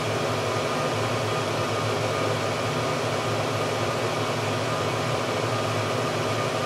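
Hot-air circulator blower on a wood stove running steadily: a constant rush of air over a low hum.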